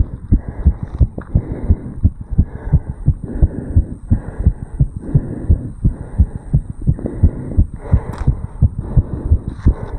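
A man's heartbeat heard over the tricuspid valve area of the chest: low, regular lub-dub beats in quick succession, raised after jogging uphill. There is a brief scratchy rustle about eight seconds in.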